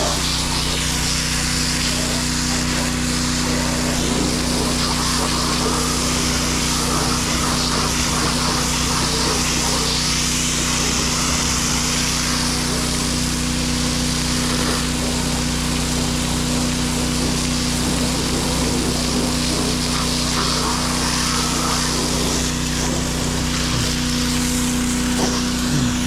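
Gas pressure washer running steadily, its small engine droning under the hiss of the water jet blasting mud off a car body. The spray hiss swells and fades as the wand is moved.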